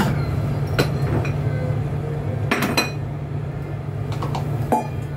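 Metal pots and utensils clinking and knocking on a kitchen counter, about five scattered clinks, two of them close together in the middle, over a steady low hum.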